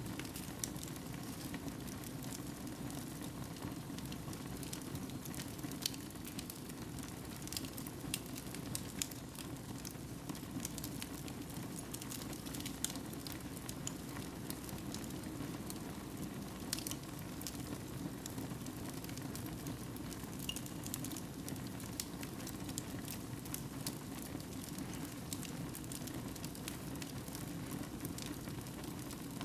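Wood fire burning in a fireplace: a steady low rush of flames with frequent small irregular crackles and pops.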